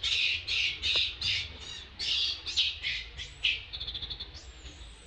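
Baby long-tailed macaque screaming in distress: a quick series of about ten shrill squeals one after another. Near the end come a fast high trill and a thin, drawn-out whistle-like squeal.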